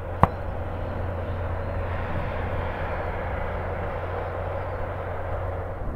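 Twin GE90-115B turbofans of a Boeing 777-300ER running steadily with a low hum, the airliner on the runway. A single sharp click sounds about a quarter second in.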